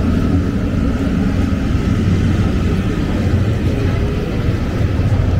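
A steady, loud low rumble of outdoor background noise, with no distinct events standing out.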